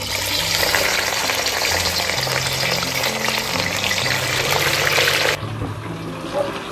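Spice-coated fish pieces sizzling in hot oil in a wok as they fry. The sizzle is loud and cuts off suddenly about five seconds in, with low steady background music underneath.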